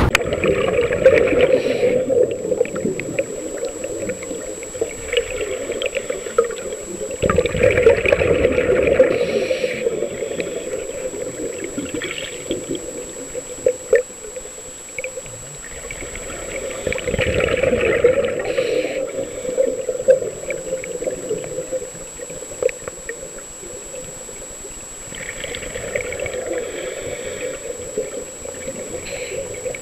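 Muffled underwater sound picked up by a submerged camera: water sloshing and gurgling in slow swells every several seconds, with scattered clicks and a faint steady high-pitched tone.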